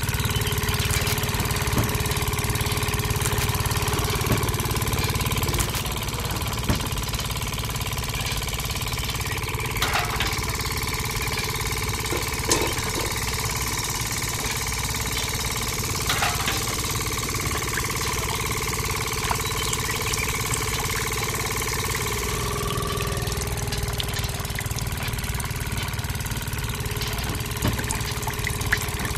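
A small engine running steadily, driving a miniature juicer machine by a belt, with a thin steady whine over the low rumble and a few light clicks.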